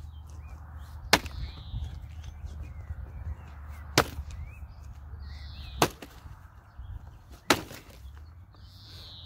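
Hultafors 1500 g Agdor axe, its edge ground thin to 15 degrees, chopping through a log: four sharp strikes about two to three seconds apart.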